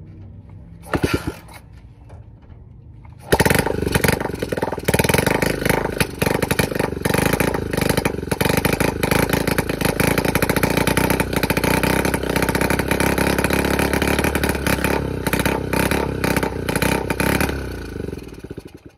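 Honda CT90's small single-cylinder four-stroke engine kick-started on its new OEM coil and condenser: a kick about a second in, then it fires about three seconds in and runs loudly on the throttle for some fourteen seconds before dying away near the end. It won't yet idle after kicking; the carburettor still needs adjusting.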